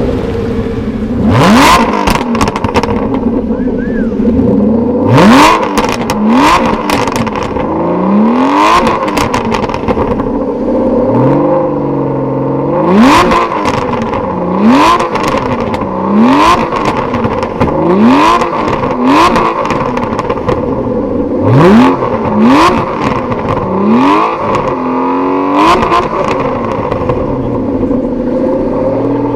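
Aston Martin CC100's V12 engine revved again and again, its pitch climbing quickly and falling back about every one and a half to two seconds, with sharp crackles from the exhaust as each rev drops.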